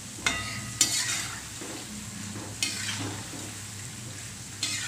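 Hot oil sizzling as sweet jaggery bhajiya (fritters) deep-fry in a steel kadai, with a slotted steel spoon scraping against the pan four times as the fritters are stirred and turned.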